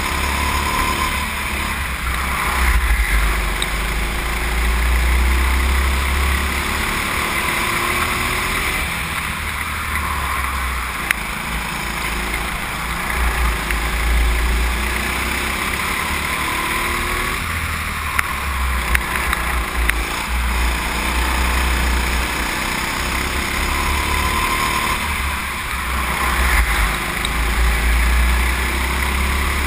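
Go-kart engine heard from onboard at racing speed, a heavy low rumble with a rushing noise over it, swelling and easing every few seconds around the lap. A couple of sharp clicks in the middle.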